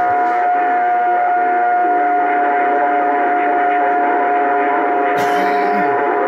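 Steady high tone coming over a Bearcat CB radio's speaker from a strong incoming AM signal, with a second, lower, wavering tone joining about two seconds in.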